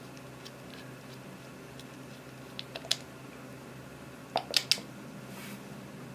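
Clear slime being worked by hand, giving sharp sticky clicks and pops in two short clusters, about three seconds in and again about four and a half seconds in, over a steady faint hiss.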